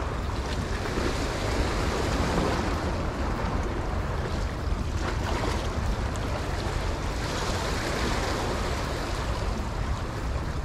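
Sea waves washing against the rocks of a jetty, swelling twice, with wind rumbling on the microphone.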